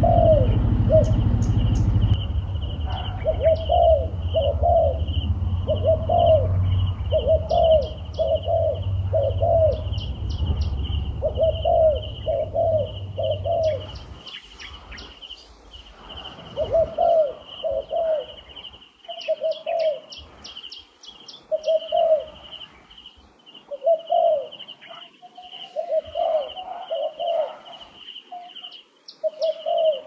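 Spotted dove cooing over and over in short phrases of a few notes. A low rumble runs under the first half and stops about halfway through, and a steady high-pitched tone sits behind the coos.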